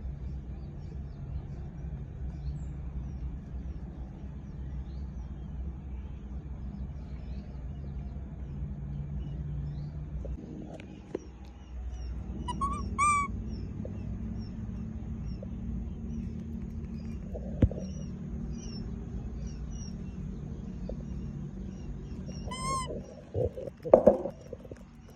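Low steady background hum with faint scattered chirps of small birds. About halfway and again near the end comes a short run of high, squeaky animal calls. Near the end there are a few loud knocks and rattles.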